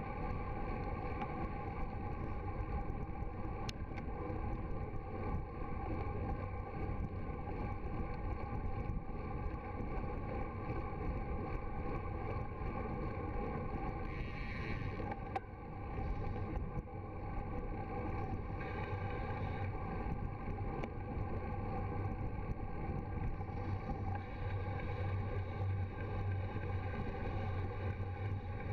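Steady wind rush over the microphone of a bicycle-mounted camera riding downhill at about 20 to 40 km/h, with a low hum that grows stronger near the end.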